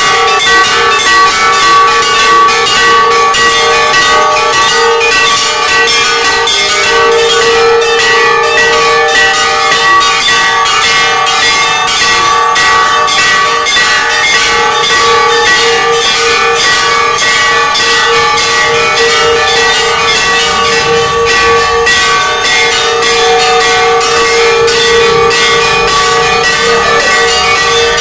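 Hanging temple bells rung by hand over and over: a steady, rapid run of strokes that blends into one continuous loud ringing.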